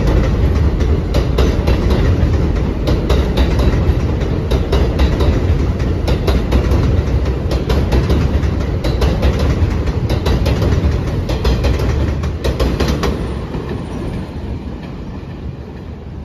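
R188 subway train pulling out of the station: a loud low running rumble with many irregular clacks from the wheels crossing rail joints as the cars pass. The clacking stops about thirteen seconds in and the sound fades away as the last car leaves.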